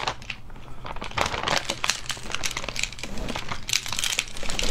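Clear plastic bag crinkling and rustling as it is tipped and handled to empty seasoned small sea snails onto a plate.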